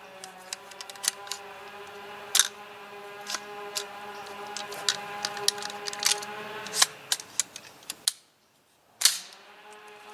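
Sharp, irregular metallic clicks and clacks of a 9mm AR-15 carbine and its magazine being handled and reloaded, over a steady hum. The sound cuts out for about a second near the end, then comes back with one loud clack.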